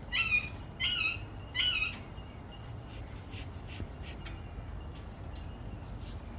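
Parrot calling: three loud, harsh, repeated calls in quick succession, about one every eight-tenths of a second, then only faint chirps and ticks for the rest of the time.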